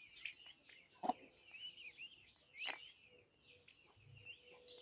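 Peafowl chicks peeping: a steady stream of short, high chirps that bend up and down. A couple of sharp taps cut in, the loudest about a second in and another near the middle.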